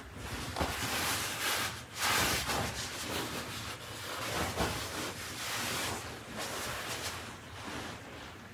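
Rustling of a black sleeveless dress's fabric as it is handled and smoothed on the body, coming in uneven swells.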